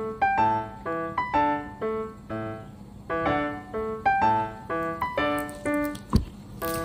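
Background piano music: a light melody of separate notes, a few per second. One short thump sounds near the end.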